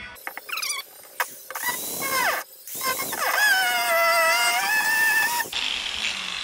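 Handheld angle grinder with a cutting disc plunging into a plywood deck panel: a loud motor whine in short bursts at first, dipping in pitch as the disc bites into the wood, then running steadily through a longer cut before it stops sharply about five and a half seconds in.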